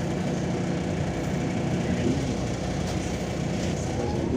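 Steady low drone of a MAZ-203 city bus's diesel engine heard from inside the passenger cabin, with an even background rumble of the bus.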